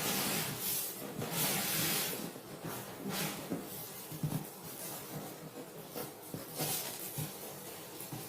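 Rustling and scraping of packaging, with a few light knocks, as a boxed jet pump is handled and turned over.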